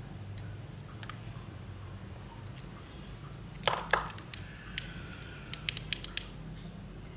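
Parts and tools handled on a hard floor while getting ready to solder a replacement 18650 battery cell: a sharp double knock about halfway through, then a quick run of five or so light clicks, over a steady low hum.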